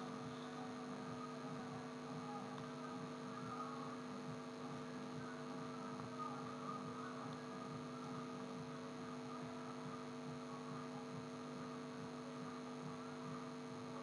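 Faint, steady electrical hum with a few fixed low tones over a light hiss, unchanging throughout.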